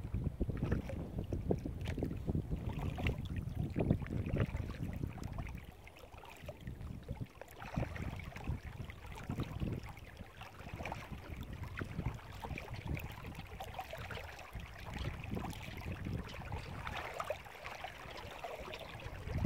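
Small wind-driven waves lapping and splashing against a kayak hull, with wind buffeting the microphone. The wind rumble is strongest for the first five seconds or so, then drops, leaving mostly the irregular lapping of the chop.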